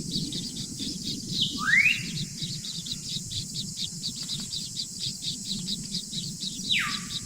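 Birds calling: a rapid run of short high chirps, about four a second, with one rising call about two seconds in and two quick falling calls near the end, over a steady low noise.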